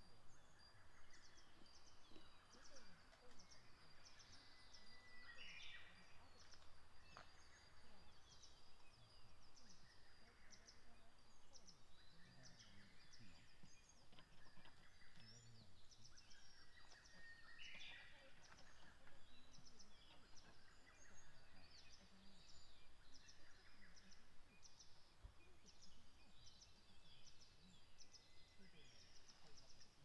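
Faint calls of small forest songbirds: many short high chirps scattered throughout, with a thin steady high note through the first half and two brief louder calls about six and eighteen seconds in.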